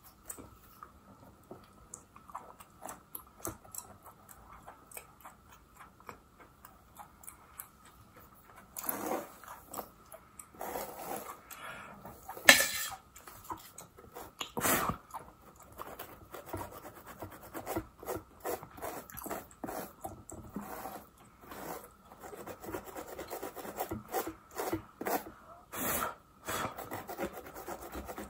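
Close-miked fingernails and an orange plastic fine-tooth comb scratching and scraping along the parting of a wig on a mannequin head, a run of short rasping strokes. They are sparse at first and grow busier and louder from about nine seconds in, with one sharp loud click near the middle.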